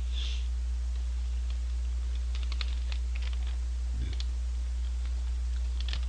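Paper fry bag crinkling and clicking in short clusters as it is handled and tipped up to the mouth, with a soft thud about four seconds in, over a steady low electrical hum.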